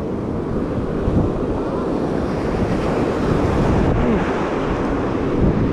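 Ocean surf breaking and washing up a sandy beach, with wind buffeting the microphone as a steady low rumble.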